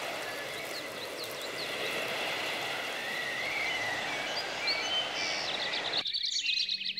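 Outdoor ambience: a steady hiss with birds chirping now and then. About six seconds in the hiss cuts off abruptly, leaving birdsong over a low, held ambient music tone.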